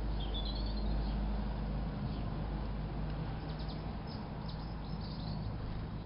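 Small garden songbirds calling: short high chirps, a brief twittering phrase under a second in and a few quick calls around the middle, over a steady low rumble.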